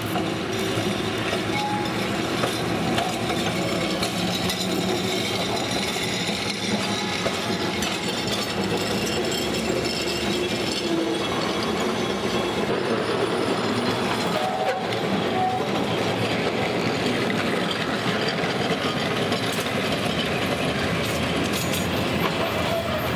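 Two-car electric street tram rolling past close by on its rails, its steel wheels clattering over the track.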